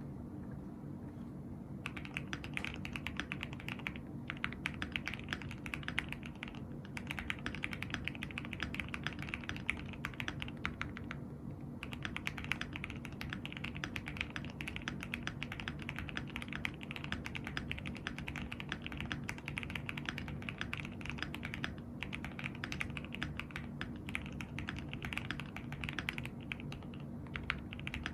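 Continuous typing on a gasket-mounted MWStudio MW65-Q mechanical keyboard with an aluminium plate and lubed Gateron Pro Milky Yellow linear switches: a dense run of key clacks. The typing starts about two seconds in and pauses briefly near the middle and again later, over a steady low background hum.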